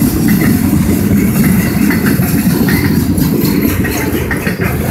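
Freight train of autorack cars rolling past at close range: a steady rumble of steel wheels on rail, with light clicks and clacks scattered through it.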